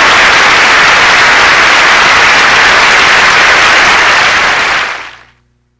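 Audience applause, a steady dense clapping that fades out about five seconds in.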